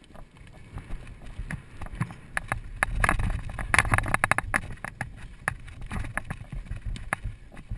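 Polo ponies galloping, heard from a camera carried in the saddle: a rapid, irregular run of hoof thuds and knocks over a low wind rumble on the microphone, densest and loudest around the middle.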